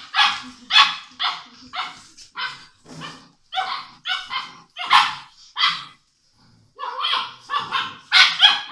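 Six-week-old English Mastiff puppy barking over and over in short, high-pitched yaps, about two a second. The barking breaks off briefly a little past the middle, then comes back in a quick run near the end.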